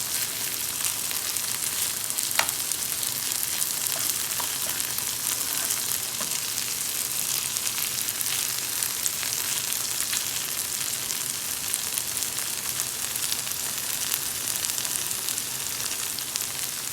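Mutton and chickpeas frying in a pan with a steady sizzle, broken by small scattered ticks and one sharper click about two and a half seconds in.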